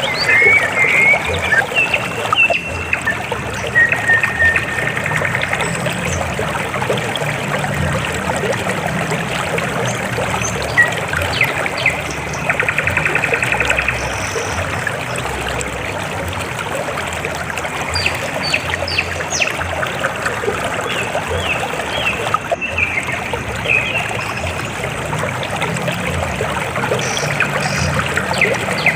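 River water flowing and trickling steadily over rocks. Short high chirps come through it now and then, with a few spells of a rapid pulsing trill near the start, about halfway through, and near the end.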